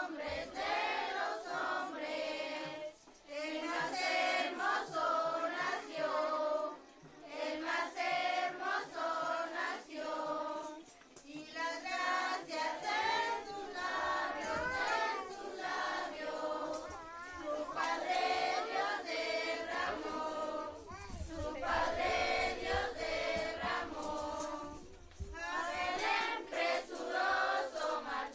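A crowd of children singing together, a posada song sung in phrases of a few seconds with short pauses between them.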